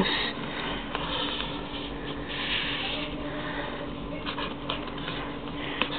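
Marker pen scratching on paper in short strokes while outlining, over a steady low hum.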